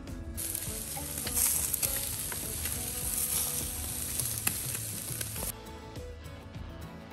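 Chicken and bell peppers sizzling and crackling on a charcoal grill, a steady hiss with scattered pops. It starts about half a second in and cuts off suddenly after about five seconds.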